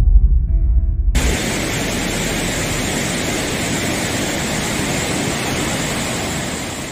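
The tail of an intro music sting with a deep rumble, then, about a second in, the steady rush of a flooded river pouring over a weir, heard as an even, unbroken wash of noise.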